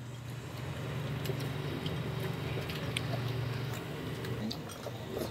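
Chopsticks stirring thick fish porridge in a metal pot, with faint scattered clicks and wet squelches. A low steady hum runs underneath and stops about four seconds in.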